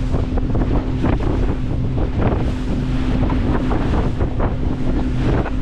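A boat's engine hums steadily under heavy wind buffeting the microphone, with the sea washing along the hull.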